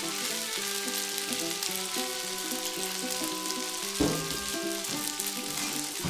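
Food sizzling and crackling in a frying pan, with background music playing over it; a single knock about four seconds in.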